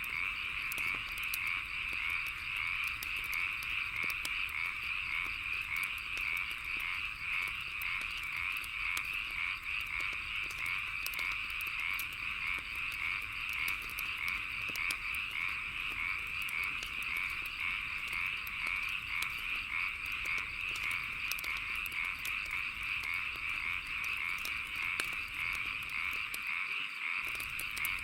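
A chorus of frogs croaking steadily, layered with chirping insects and the sharp pops and crackles of a wood fire.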